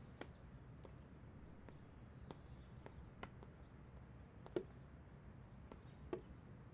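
Near silence: faint room tone with a few scattered soft taps, one a little louder about four and a half seconds in.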